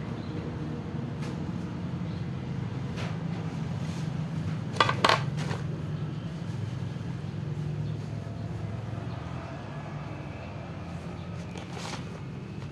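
Dog eating from a shallow metal tray: scattered sharp clinks of its mouth against the metal, loudest as a quick cluster about five seconds in, over a steady low hum.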